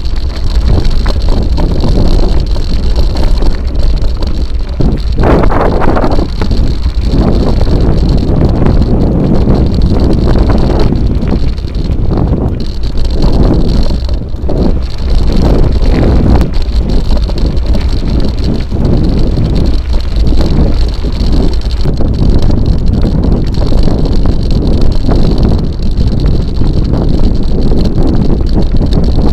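Mountain bike riding over a stony gravel track: the tyres rumble and rattle over loose stones, with heavy wind buffeting on the microphone.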